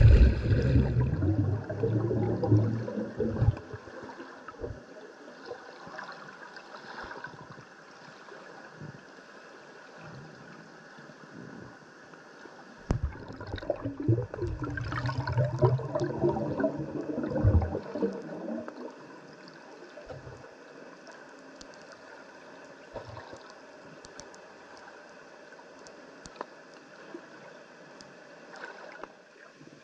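Water moving against an underwater camera's microphone: two louder spells of churning water with low rumbling, in the first few seconds and again from about 13 to 18 seconds in, with a faint steady hiss and scattered light crackles between.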